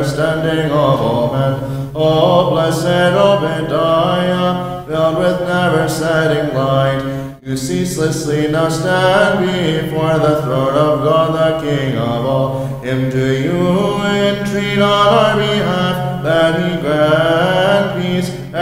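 Byzantine liturgical chant from Vespers, sung by men: a melody moving over a steady low held note, with a brief break about seven and a half seconds in.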